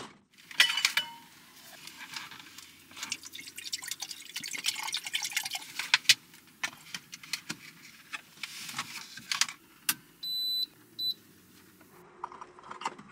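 Water poured from a large plastic bottle, splashing and glugging into a small countertop appliance, with a clink from the bottle early on. Two electronic beeps about ten seconds in, the first longer, as the appliance is switched on.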